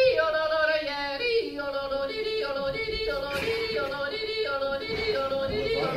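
A woman yodeling, her voice flipping back and forth between a lower and a higher note in quick, repeated phrases.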